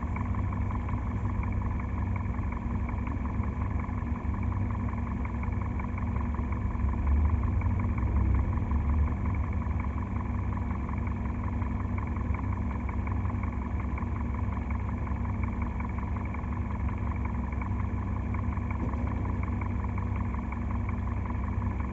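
Hyundai/Kia G4FC 1.6-litre four-cylinder petrol engine running steadily at constant speed, heard from inside the car's cabin. It gives a low, even rumble that swells briefly a few seconds in.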